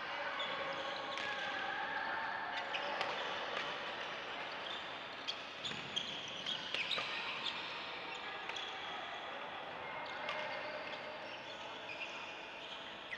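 Badminton rallies on several courts: sharp racket strikes on shuttlecocks, with a quick run of louder hits about six seconds in, over the brief squeaks of players' shoes on the court floor.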